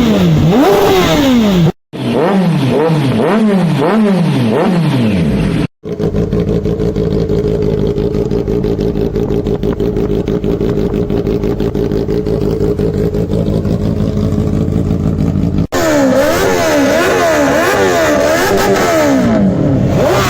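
Motorcycle exhausts revved while the bikes stand still, in a few cut-together recordings. The throttle is blipped repeatedly, so the pitch rises and falls again and again. For about ten seconds in the middle, one engine idles steadily with a fast, even beat, and then the revving resumes.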